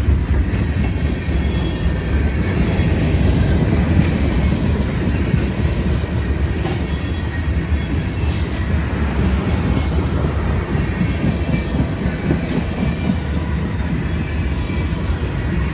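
Freight cars of a long manifest train rolling past: a steady rumble of steel wheels on rail, with faint wheel squeal above it.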